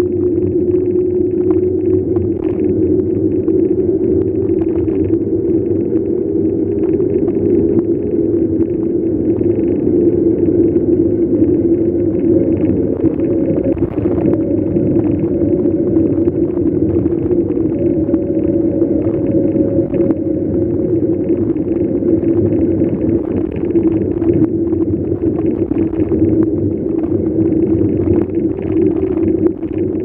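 Mountain bike rolling along an asphalt road: steady wind rumble over the handlebar-mounted camera's microphone, mixed with tyre noise, with a steady low drone.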